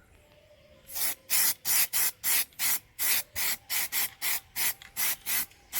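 Aerosol can of 2-in-1 filler primer spraying onto a car wheel in short on-off bursts, about three hisses a second, starting about a second in. The short pulses are the light coats, sprayed on and off so the primer covers evenly without running.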